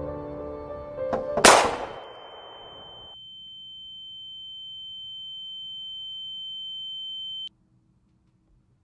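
Soft piano music, a faint click, then a single loud bang about a second and a half in that dies away over a second or so. A steady high-pitched ringing tone follows, slowly growing louder, and cuts off suddenly near the end.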